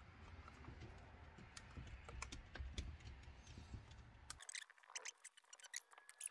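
Faint, scattered small clicks and taps of hands working small parts into place on a Husqvarna 365 chainsaw's intake. A low background hum cuts out about four seconds in, after which the clicks are sharper and come closer together.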